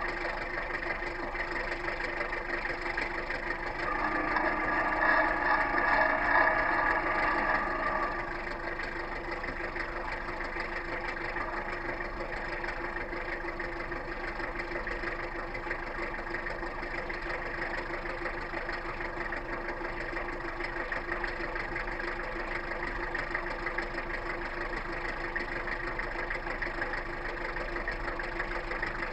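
Fishing boat's engine running steadily, a constant drone with a higher sound louder on top for a few seconds near the start.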